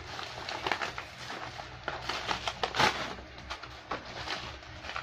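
Bubble wrap and plastic packaging crinkling and crackling in irregular bursts as a parcel is pulled open by hand, loudest just before three seconds in.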